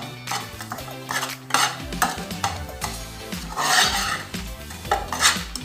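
A metal spoon stirring and scraping ground egusi and crayfish being fried in a nonstick pan, in irregular scraping strokes.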